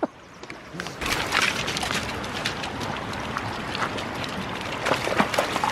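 Steady hiss of fast-flowing stream water near a waterfall, with a few short splashes.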